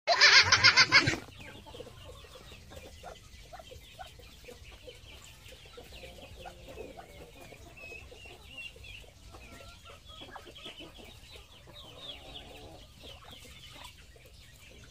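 About a second of loud child's laughter, then hens clucking softly among light pecking taps as chickens and ducks feed on a watermelon rind on bare ground.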